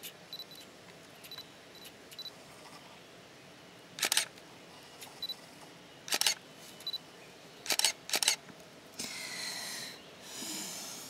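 Camera shutter firing about five times, single clicks then a quick run of three, with faint short high beeps between them. Near the end a soft rushing noise rises and fades.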